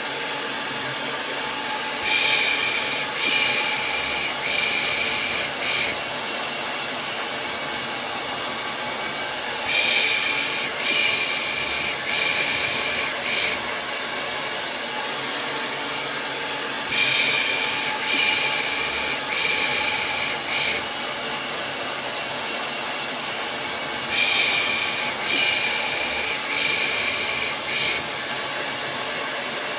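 Hair dryer running with a steady rushing noise, with a baby-soothing 'pış pış' shush laid over it: groups of about four short shushes come back roughly every seven seconds, four groups in all.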